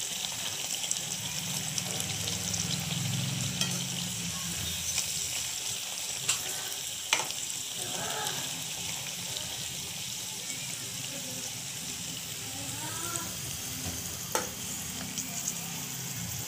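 Batter-coated potato slices sizzling steadily as they deep-fry in hot oil in a kadhai, with a few sharp clicks of metal tongs against the pan.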